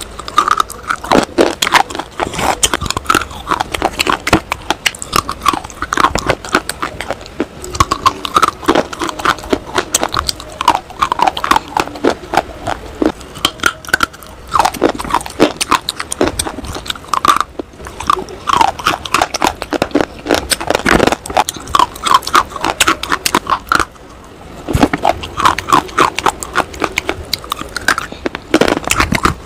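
Close-miked, crisp snapping bites and crunching as hard pinkish-red bars are bitten and chewed, many sharp cracks in quick runs with brief pauses between bites.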